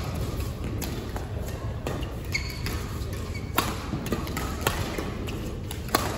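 Badminton rackets striking a shuttlecock during a doubles rally: a series of sharp clicks, roughly one a second, with the hardest hit near the end as a player jumps into a smash. The strikes ring in a large hall, and shoes squeak and scuff on the court floor.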